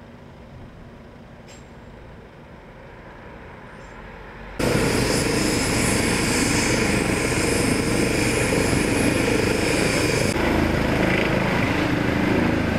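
Faint steady background, then about a third of the way in a Eurocopter EC135 air-ambulance helicopter, on the ground with its rotor turning, comes in suddenly and loudly: steady turbine whine over rotor noise. Near the end the high whine drops away while the loud engine and rotor noise goes on.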